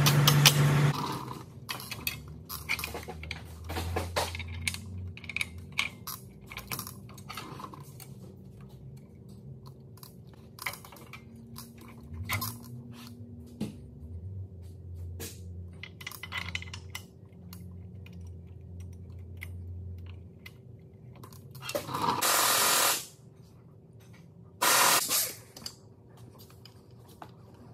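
Scattered metal clinks, clanks and scrapes of hand tools on drum brake shoes and their return springs as they are fitted to a truck's steer axle, over a faint low hum. Near the end come two short, loud bursts from an air tool.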